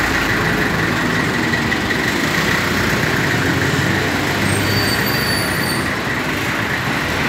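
Diesel engine of a 1963 Toyota military weapons carrier truck running steadily as the truck is driven off at low speed, with a faint high squeak or two about two thirds of the way through.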